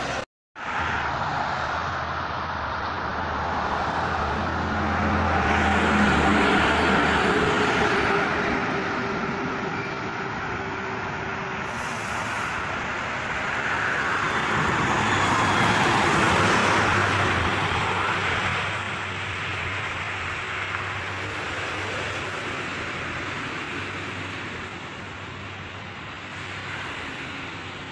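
Highway traffic passing at speed: engine and tyre noise of coaches and trucks, swelling as each vehicle goes by, loudest twice. A brief gap of silence just after the start.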